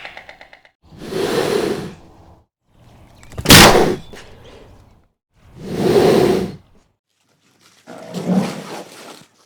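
A large animal giving four rough, roaring calls about two seconds apart, the second one short and the loudest.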